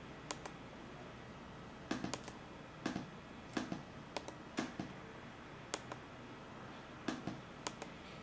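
Light, sharp clicks from a Canon EOS Kiss X6i's controls being pressed to step through its menu settings: about a dozen at uneven intervals, some in quick pairs or threes.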